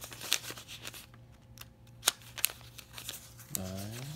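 US $50 paper banknotes being counted by hand, each bill peeled and flicked off the stack with a crisp papery snap; the snaps come irregularly, the loudest about two seconds in.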